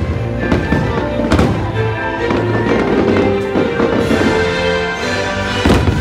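Aerial fireworks bursting: several sharp bangs, with two strong ones close together near the end, over loud show music.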